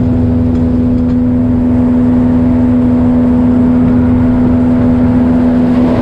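Boat's outboard motor running at a steady speed while underway, a loud even drone that holds one pitch throughout.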